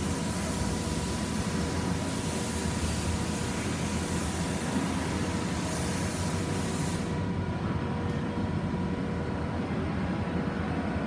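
Lucas Precision 7-inch floor-type horizontal boring mill running under power: a steady mechanical rumble with a constant hum. A high hiss over it cuts off suddenly about seven seconds in.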